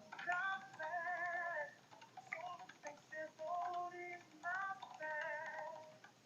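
Faint music with a woman singing in short phrases with vibrato.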